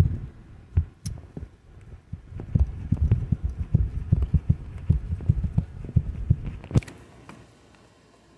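Hands working a wiring loom and hose back into place in a car's engine bay, right up against the microphone: irregular low thuds and rubbing with a few sharper clicks, stopping about seven seconds in.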